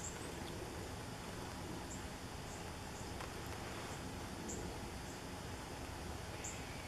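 Steady outdoor background noise with faint, short, high-pitched chirps from a small animal, repeating every second or two.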